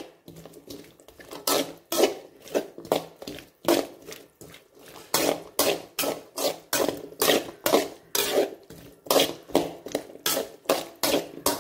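A spoon or spatula scraping and knocking against a pan while onions are stirred and sautéed in oil, in repeated irregular strokes about two or three a second.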